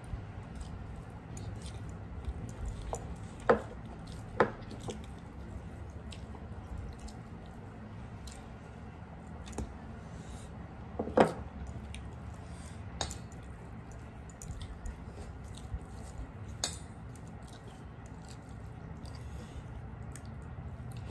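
Eating by hand from steel plates: wet squishing as fingers mix rice and curry, and chewing. A few sharp clinks on the metal plates, the loudest about three and a half, four and a half and eleven seconds in.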